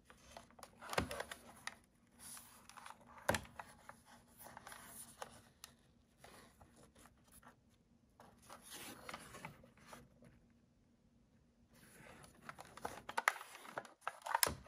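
Hands handling a Kodak S10 plastic 35mm compact film camera: rubbing and scraping on its plastic body, with sharp knocks about a second in and about three seconds in. Near the end comes a quick run of clicks and scrapes as the back door catch is worked open.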